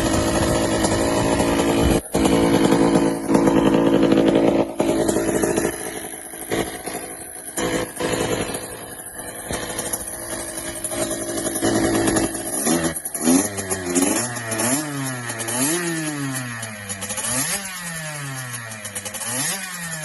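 Kawasaki KX65 two-stroke single-cylinder dirt bike engine running hard at high revs. In the second half it is revved up and down repeatedly, rising and falling about once a second.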